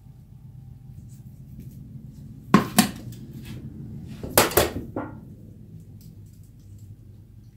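Metal hand tools clanking on a stainless steel work table: a sharp double clank about two and a half seconds in, then another double clank and a lighter knock around four and a half to five seconds.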